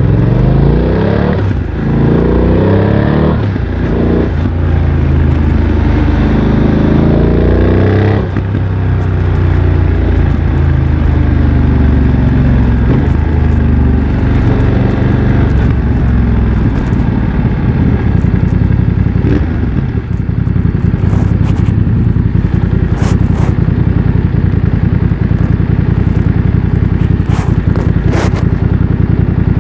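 BMW F900 XR parallel-twin engine through a MIVV X-M1 aftermarket exhaust. It accelerates through three quick upshifts in the first eight seconds, with the revs climbing after each short break. The revs then fall off as the bike slows, and the engine settles into a steady drone for the second half.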